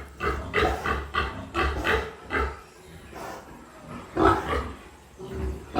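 Pigs grunting, a run of short harsh calls about two a second, then a quieter pause, then a few more calls near the end.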